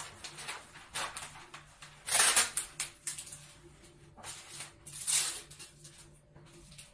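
Waterproof wrapping paper rustling and crinkling as it is handled and pressed onto a metal stand, with louder crinkles about two seconds in and again about five seconds in.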